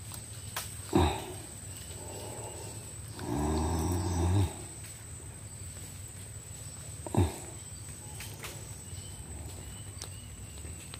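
Steady high-pitched insect whine from the riverbank vegetation, with a few short knocks and handling sounds as a caught giant freshwater prawn is unhooked in a wooden boat, and a brief low hum about three seconds in.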